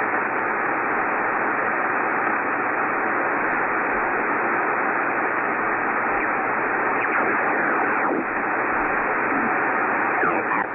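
Yaesu FT-1000MP Mark-V HF transceiver tuned across the 75-meter band, its speaker giving steady static and band noise. A few whistles slide down in pitch as signals pass through, about seven and ten seconds in.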